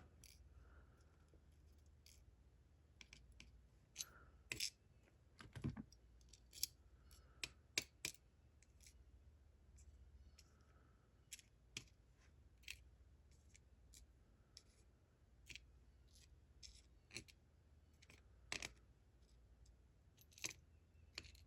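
Light, irregular clicks and taps of small metal lock parts and tools being handled on a work surface, against a faint low hum.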